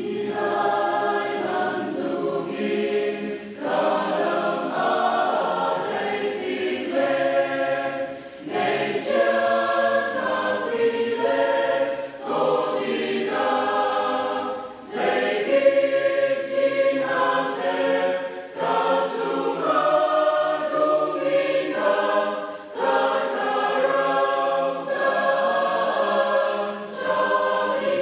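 Mixed choir of men and women singing a hymn together, in long sustained phrases broken by brief pauses for breath every few seconds.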